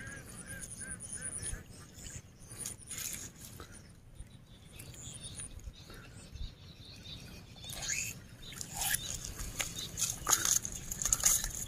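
Quiet outdoor ambience with a low wind rumble, scattered soft rustles and clicks as a hook and line are worked out of a caught eel's mouth, and a short run of faint chirping bird calls in the first second or so.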